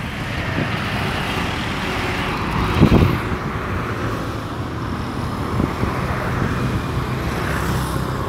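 Passing road traffic of motorcycles and cars: a steady rush of engines and tyres, with a brief low thump about three seconds in.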